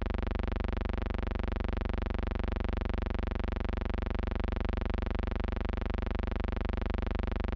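Steady low electrical hum and buzz with many evenly spaced overtones, unchanging throughout: a constant tone on the archive transfer's soundtrack rather than any sound from the deck.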